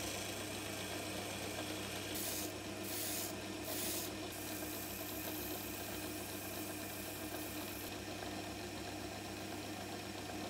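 Small lathe running with a steady motor hum while abrasive is held against the spinning steel part. Abrasive cloth hisses in several short strokes a couple of seconds in, then in a longer even rasp, and a scouring pad rubs it more quietly near the end.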